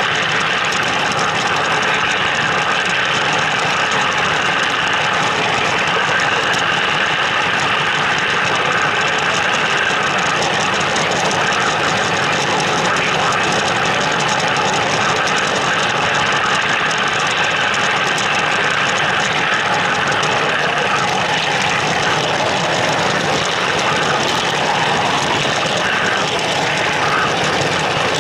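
O-scale two-rail model train running on the layout, heard from a car riding in the train: a steady mechanical rumble of the model's motor and wheels on the track.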